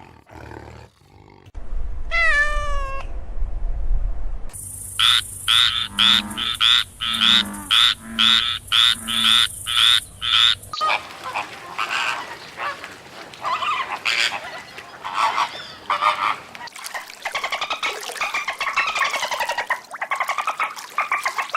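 A series of animal calls: one short call, then about a dozen evenly spaced calls at about two a second, then a denser run of overlapping pitched calls.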